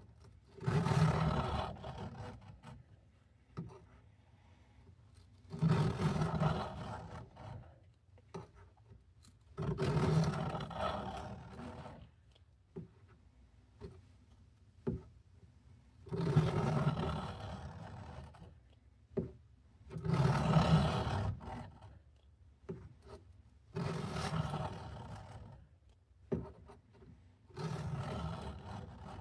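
Knife blade scraped along a coarse sharpening stone lubricated with WD-40, in about seven slow strokes roughly four seconds apart, with small clicks between them. This is the coarse-grit stage, grinding out a nick in the edge.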